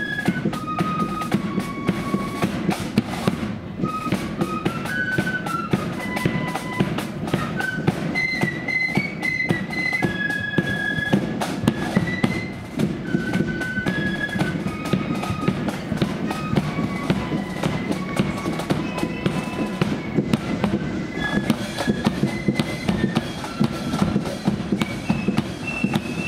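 Blood-and-thunder marching flute band playing a march: flutes carry a high stepping melody over fast, busy snare drumming.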